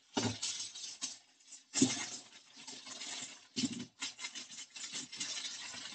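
Aluminum foil crinkling and crackling as a sheet is handled and crumpled by hand into a baking dish to line it, with a couple of louder crunches about two and three and a half seconds in.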